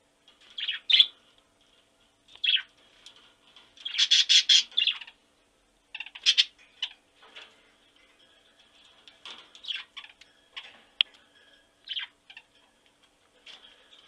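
Macaws squawking in short calls: a loud one about a second in, a fast string of calls around four seconds in, another loud call past six seconds, then scattered quieter calls.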